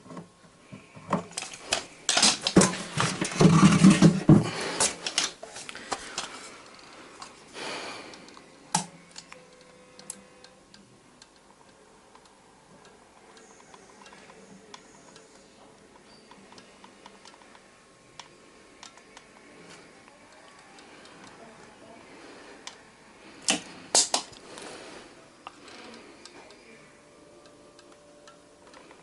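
Clicks and clattering of hard plastic parts being handled, with a dense burst of rattling a few seconds in and a few sharp clicks near the end.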